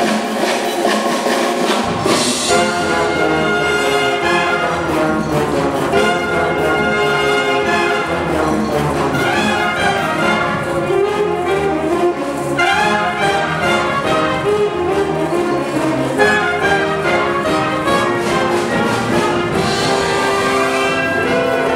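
Wind orchestra playing live, clarinets, flutes and brass together in sustained, changing chords; the low instruments come in about two seconds in.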